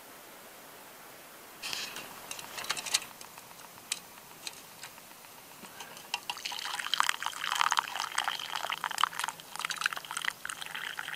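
A few clicks and knocks, then from about six seconds in a drink poured in a steady stream from a metal pot into a wooden bowl, splashing as the bowl fills.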